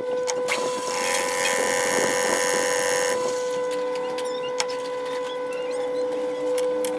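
Lathe running with a steady motor whine. From about one second to three seconds in, a loud, harsh machining noise sounds over it, then stops, with a few light clicks afterwards.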